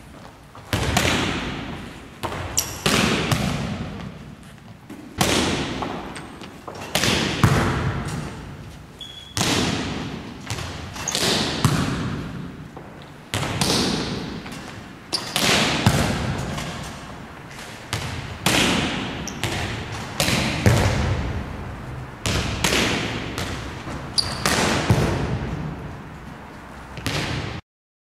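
A volleyball being struck and passed on a hardwood gym court: repeated sharp slaps of hand and forearms on the ball and the ball landing on the floor, one or two impacts every couple of seconds, each echoing in the hall. It cuts off abruptly near the end.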